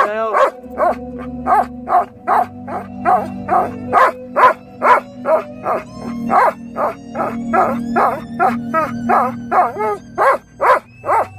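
A Belgian Malinois 'singing': a long run of short, pitched howls, about two to three a second, along with music playing underneath.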